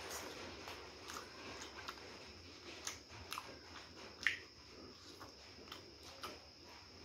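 Two people biting and chewing crispy fried chicken drumsticks and toasted egg sandwiches: irregular small crunches and clicks, the sharpest crunch a little past four seconds in.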